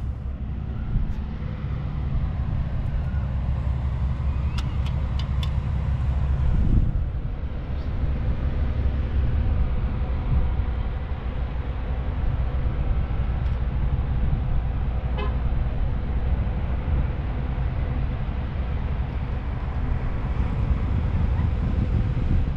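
Steady low rumble of wind buffeting the microphone, with a faint constant hum beneath it and a few light clicks about five seconds in.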